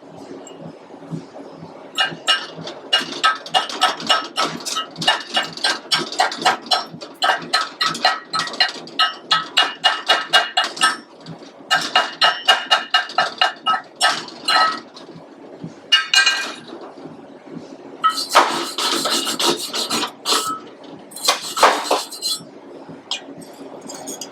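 Chipping hammer striking a steel weld bead in quick runs of about three or four ringing blows a second, knocking slag off a stick weld, followed later by two spells of harsh scraping on the metal.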